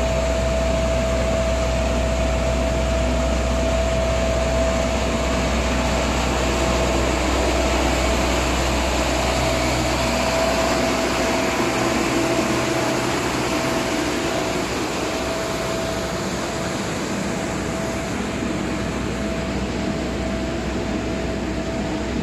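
Isuzu FVR road sweeper truck working: a steady mechanical drone with a constant whine and a deep engine rumble that eases about halfway through.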